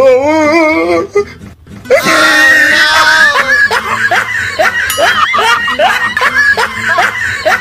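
Loud human laughter and shrieking. A wavering laugh comes at the start, a high shriek about two seconds in, then a run of short rising laughs, about two a second.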